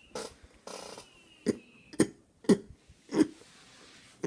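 A man clearing and scratching an itchy throat: a series of short, separate guttural throat noises about every half second, starting about a second and a half in.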